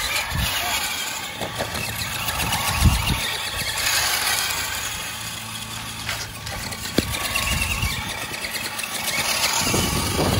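Battery-powered Monster Jam Megalodon Storm RC monster truck's electric motors whirring as it drives through thick, long lawn grass, rising and easing off with the throttle.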